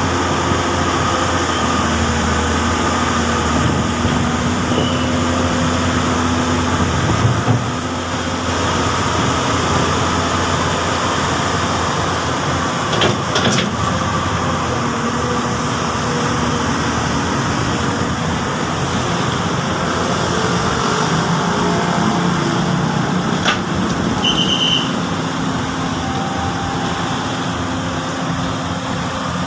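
Komatsu PC200 hydraulic excavator working, its diesel engine running steadily with its pitch shifting now and then, and a couple of short sharp knocks, one near the middle and one later.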